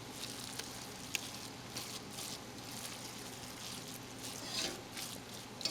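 Risotto being stirred in its pan as grated Parmigiano is folded in: faint, irregular wet squishing and scraping.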